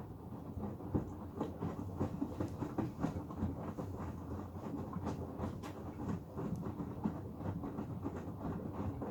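Hoover Axi 9 kg washing machine running: a steady rumble with many small irregular clicks and knocks.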